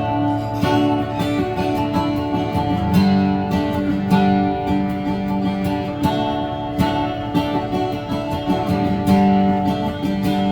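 Instrumental break of a country song played live: strummed acoustic guitar chords, with no singing.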